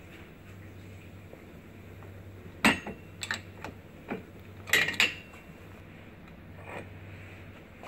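Metal parts of a Chinese outboard motor's gearcase clinking and knocking as the housing is worked apart to take off the shaft retainer. There are several sharp clinks with a short ring, the loudest about three and five seconds in.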